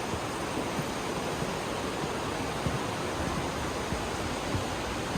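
Rushing river water in a narrow rock gorge, a steady, even noise throughout. It cuts off abruptly right at the end.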